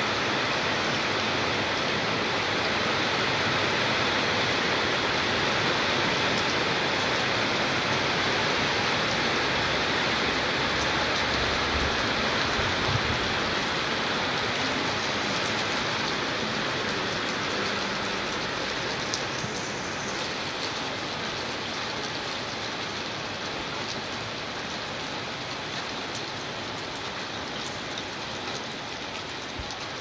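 Steady rain falling, a continuous even hiss that grows slightly quieter over the last third.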